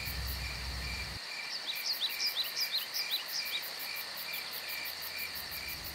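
Crickets chirping in a steady, evenly repeating rhythm, with a run of short rising chirps from about one and a half to three and a half seconds in. A low hum underneath cuts out about a second in.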